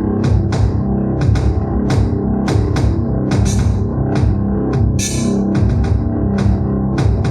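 Electronic keyboard playing a built-in rock-style rhythm with a drum kit and bass line and a steady beat, with a cymbal crash about five seconds in.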